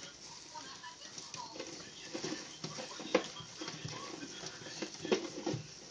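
Two Russian tortoises scrabbling in coconut-chip substrate, claws scratching and shells knocking together as the male presses on the female during courtship. A sharper knock comes about three seconds in and another about five seconds in.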